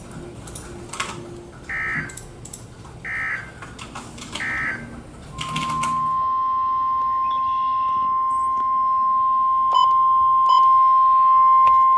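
NOAA Weather Radio Emergency Alert System signal: three short screeching digital SAME data bursts about a second and a half apart, then the 1050 Hz warning alarm tone, a steady loud high beep that starts about five seconds in and holds. It marks the start of a new weather warning broadcast.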